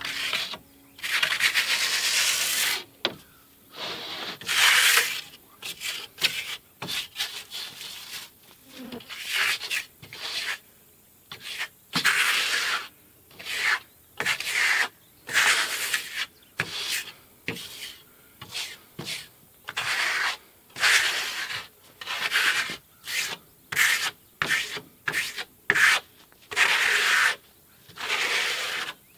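Paintbrush strokes rubbing across coop boards as paint is brushed on: a string of separate scratchy swishes, roughly one a second in uneven runs.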